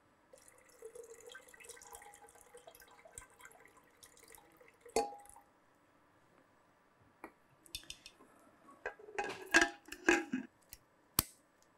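Water being poured from a glass jug into a pressure cooker, a faint trickle for about five seconds that ends in a knock. Then come a few sharp clicks and clinks of metal as the cooker's lid is fitted and closed.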